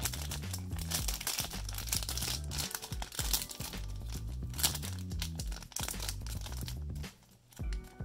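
Plastic wrapper of a trading-card pack crinkling and tearing as it is opened, over background music that briefly drops out near the end.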